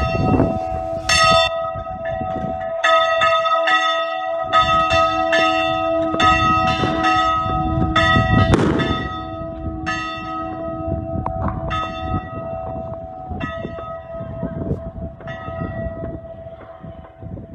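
Church bells ringing in fast, repeated strikes with a lingering hum, ringing in the new year. The strikes thin out and grow fainter over the last several seconds.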